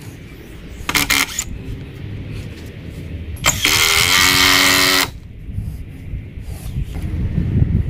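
Cordless drill driving a screw into a timber post: a short pull of the trigger about a second in, then a longer run of about a second and a half with the motor whining steadily.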